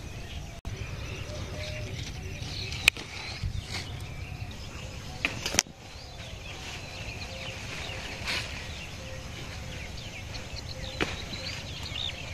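Gourd flowers being picked by hand among the vine's large leaves: leaves rustling, with a few sharp clicks spread through. Faint birds chirp in the background.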